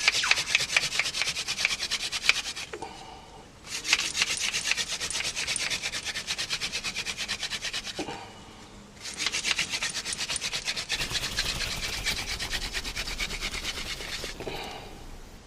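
Hand drill for friction fire: a Lantana spindle spun fast between the palms, grinding into a soft Xanthorrhea (grass tree) hearth board with a dense, scratchy rubbing. It comes in three bouts with two short pauses, as the drilling builds an ember in the damp hearth.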